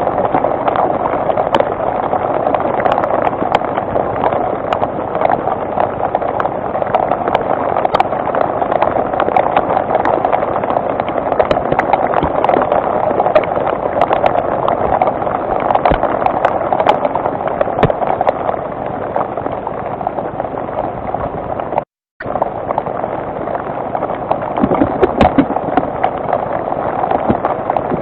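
Steady rain falling, with many drops ticking sharply close to the microphone; the sound cuts out completely for a moment about 22 seconds in.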